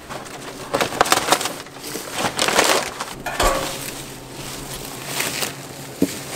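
Cardboard packing and plastic stretch wrap being pulled off a motorcycle shipping crate: irregular crackling and rustling that comes and goes in several short spells.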